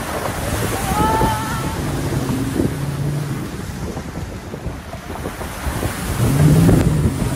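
Wind buffeting the microphone at an open truck window over a running pickup engine, with rushing water and mud splashing as a pickup ploughs through a muddy water hole; it gets louder about six seconds in.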